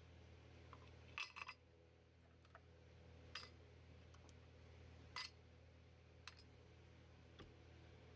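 A few faint clicks and taps as strips of metal staples are set into a small pine drawer, over a low steady room hum: a quick cluster about a second in, then single clicks spaced out after.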